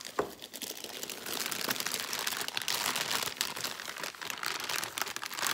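Plastic packaging crinkling and rustling as it is handled: a continuous run of small crackles as a clear plastic bag of packaged meat is rummaged out of a plastic-lined box.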